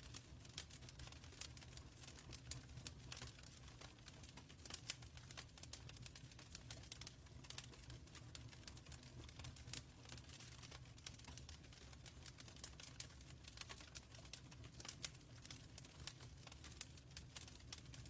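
Wood fire crackling in a fireplace: many small irregular pops and snaps over a low steady rumble of the burning.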